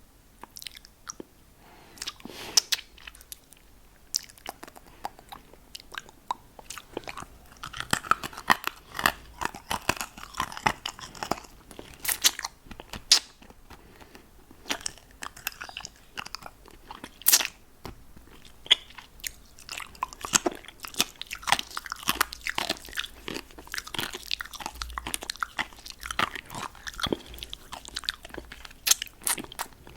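Close-miked mouth sounds on a lollipop: wet clicks, smacks and sucking noises from lips and tongue on hard candy, irregular and sparse at first, then coming thick and fast from about a quarter of the way in.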